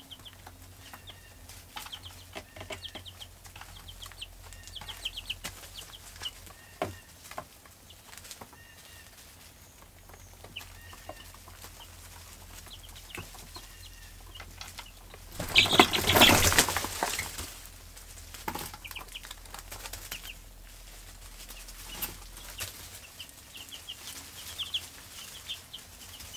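Young chicks peeping in short high chirps, with scattered small clicks and scratches in wood shavings. A little past halfway there is a loud flurry of flapping wings lasting about a second and a half.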